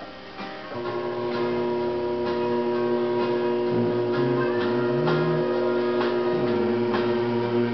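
Background instrumental music: several notes held steadily together over a lower line that moves up and down in pitch, with light clicks scattered through it.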